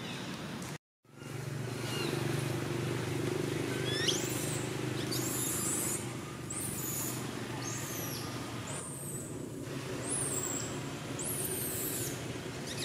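Baby macaque screaming in a run of about eight short, very high-pitched squeals, over a steady low engine hum in the background. The sound drops out briefly about a second in.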